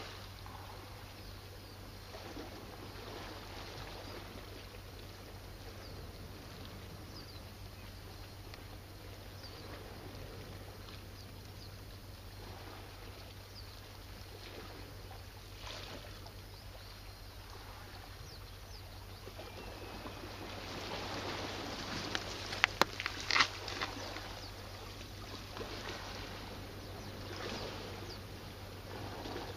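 Small waves lapping against a rocky shore, over a steady low hum. A few sharp clicks come close together about 22 seconds in and are the loudest sounds here.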